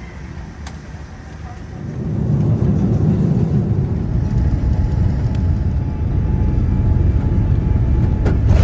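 Jet airliner cabin noise heard from a window seat: a steady low rumble of engines and rushing air that comes up loud about two seconds in, through the descent and onto the runway on landing.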